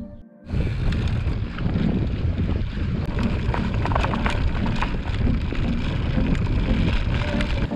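Mountain bike riding over a wooden-slat boardwalk, starting about half a second in: wind rushing on the handlebar camera's microphone, with a steady rattle and many small clicks from the tyres and bike crossing the planks.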